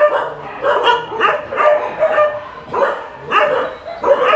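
Many shelter dogs barking at once: short barks and yips overlapping in a continuous run, several a second.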